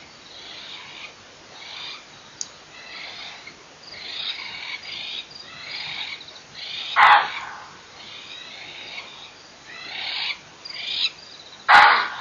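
Wild animal alarm calls following a big cat's visit: two loud, short, harsh calls, one about seven seconds in and one near the end, over a steady chorus of chirping frogs or insects.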